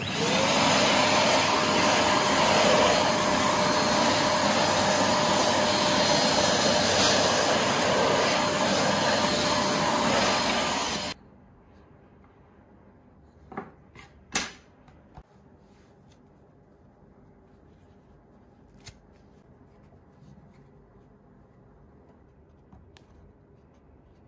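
Cordless drill boring a hole into the end of a wooden dowel: the motor spins up, then runs steadily with a loud grinding of the bit in the wood for about eleven seconds before stopping abruptly. A couple of light knocks follow a few seconds later.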